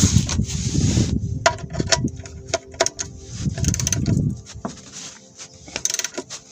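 Irregular metallic clicks and clinks with handling and rustling noise: hand tools and the transmission drain plug being worked while the plug is refitted.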